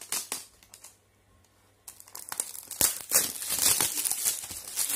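Parcel packaging being torn open and crinkled by hand: a few short rustles, then from about two seconds in continuous tearing and crinkling.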